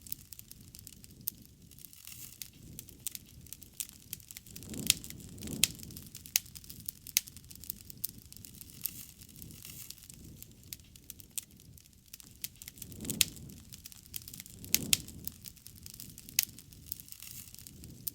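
Wood fire crackling, with irregular sharp pops and snaps. A few brief low swells rise under the crackle about 5, 13 and 15 seconds in.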